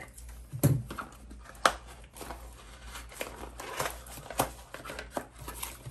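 A padded mailer package being opened: paper and plastic packaging crinkling, with scattered sharp crackles and a couple of louder clicks in the first two seconds.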